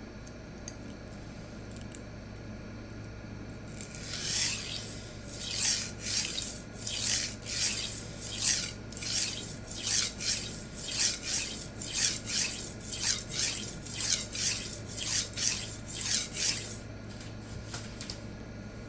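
Edge of a 52100 steel chef knife scraping back and forth across a resin-bonded diamond sharpening stone, about two strokes a second. The strokes start about four seconds in and stop shortly before the end, while the edge is being worked up to a full-length burr.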